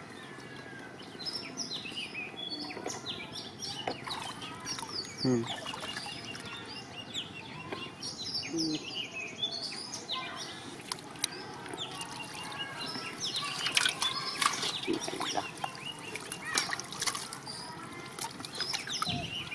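Birds chirping and calling throughout, over wet splashing and handling noises as fish are taken from a net and dropped into a tub. A cluster of sharp knocks and splashes comes about 14 seconds in.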